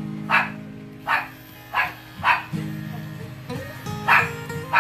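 A dog barking about five times at uneven intervals over background music.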